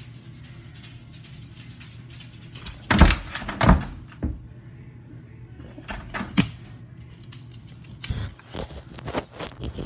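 Dog's paws knocking and scraping against a door and the phone lying under it, in short clusters of thuds: a few loud ones about three seconds in, a couple more about six seconds in, and a quicker run near the end, over a steady low hum.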